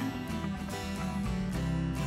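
Background music led by a strummed guitar, with a steady beat.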